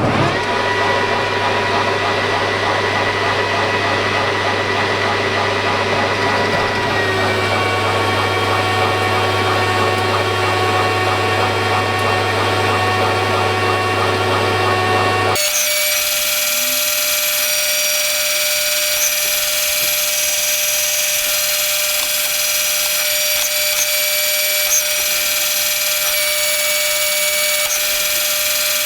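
Power grinder running steadily while grinding a metal part on a lathe, with a steady hum and whine. About halfway through, the sound changes abruptly to a higher, hissier whine that carries on steadily.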